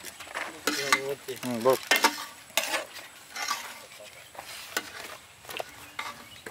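Metal spoons scraping and knocking against large metal serving bowls as thick fish curry is scooped out and dropped into foam takeaway boxes: a run of irregular short scrapes and clinks.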